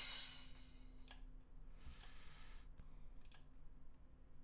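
Crash cymbal sample previewed in the sample browser, its wash fading out over about the first second. Then a few sharp computer-mouse clicks.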